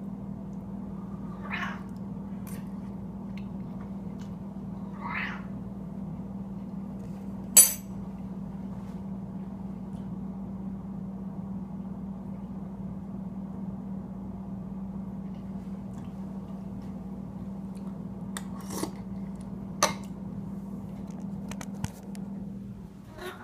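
An elderly domestic cat meowing to beg for food: two short meows in the first five seconds and a faint one at the very end, over a steady low hum. A sharp click, the loudest sound, comes about a third of the way in, and a few quieter clicks follow near the end.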